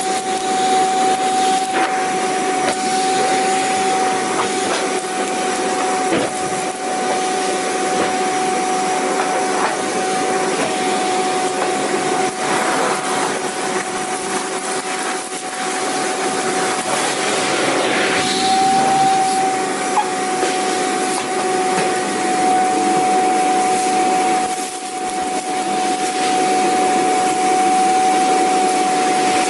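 Vacuum cleaner running steadily: a constant motor whine over a loud rushing hiss of air.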